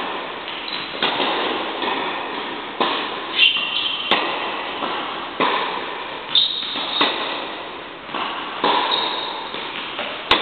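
Tennis balls being struck by rackets and bouncing on an indoor court during a rally: a string of sharp pops roughly every second, each echoing in the large hall.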